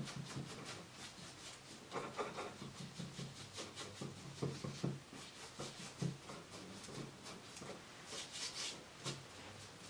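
Paintbrush scrubbing paint onto a stretched canvas in quick, short strokes, faint and scratchy, with louder clusters of strokes now and then.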